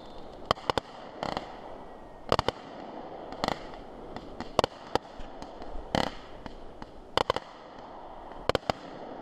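Aerial fireworks going off in a show, heard as about a dozen sharp bangs at uneven intervals, some in quick pairs and some trailing a short echo.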